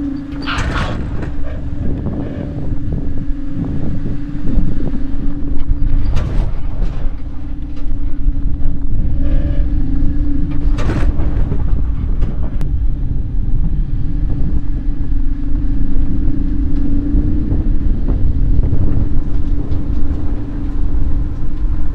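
Road noise of a moving towed caravan heard at its chassis: a steady low rumble with a constant hum and wind buffeting the microphone, broken by three short sharp bursts of noise about 1, 6 and 11 seconds in.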